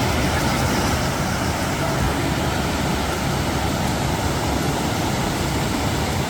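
Mountain stream water rushing steadily over rocks, a continuous even noise.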